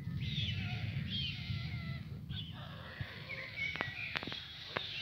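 Songbirds singing and calling outdoors: short warbled phrases, then several quick sharp chirps in the last second or so, over a steady low rumble that is strongest in the first two seconds.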